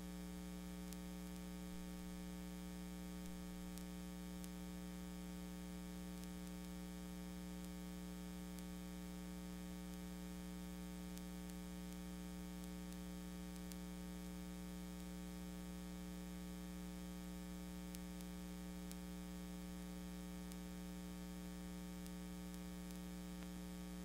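Steady electrical mains hum with a buzzy edge, unchanging in pitch and level.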